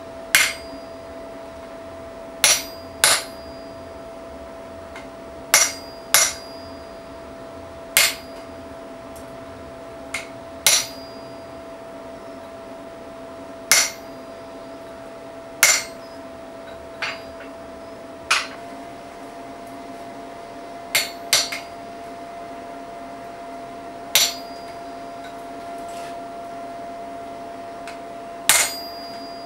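Hammer blows on a hand-held steel punch set in the loop of a hot forged bottle opener on an anvil: about sixteen sharp metallic strikes, one every one to three seconds, some ringing briefly. A steady hum runs underneath.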